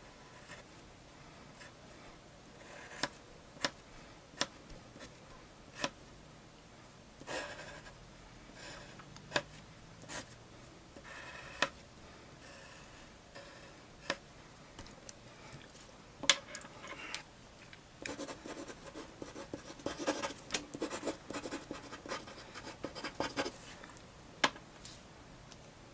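Pencil scratching on sketchbook paper in separate short strokes and sharp ticks. About two-thirds of the way through it turns into a dense run of quick scribbling, which matches a signature being written.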